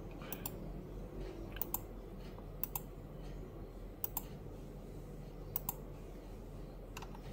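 Quiet room tone with a low steady hum and faint sharp clicks, mostly in quick pairs, coming about every second and a half.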